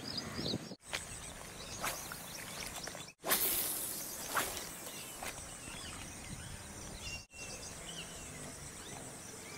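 Outdoor pond-side ambience of small birds chirping and insects humming. About three seconds in, a sudden rush of noise that fades over a second comes as a spinning rod is cast.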